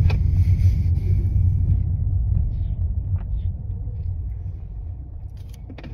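Low, steady road and engine rumble inside a moving car's cabin, fading gradually over a few seconds.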